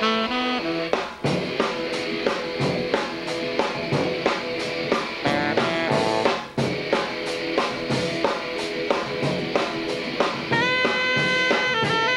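Rock band playing an instrumental intro: a steady drum kit beat with electric guitar and bass, and a saxophone coming in with long held notes near the end.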